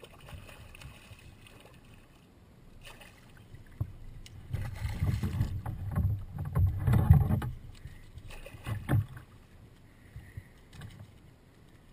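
Water splashing and knocks around a kayak as a striped bass thrashes at the surface beside the boat. The splashing is loudest in an irregular run of several seconds in the middle, with a last sharp splash near the end of it.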